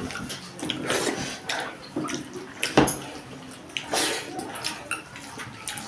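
Close-miked eating sounds of a rice-and-dal meal: wet chewing and lip smacking, with irregular sharp clicks and squelches.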